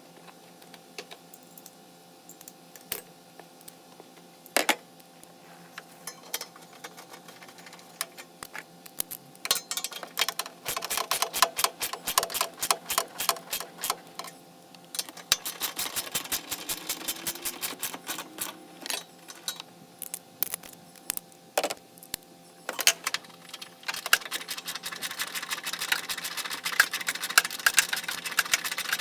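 Ratchet wrench clicking in fast runs, with scattered single metallic clinks and knocks of tools, during work on a car's starter.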